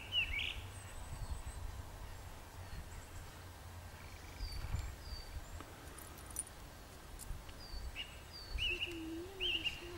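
Songbirds singing in the open: short chirping phrases right at the start and again in the last two seconds, with thin falling whistled notes in between, over a low steady rumble.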